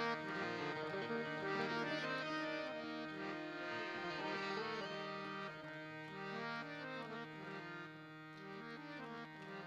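Harmonium playing a melodic instrumental passage, held notes moving in steps, getting gradually softer toward the end.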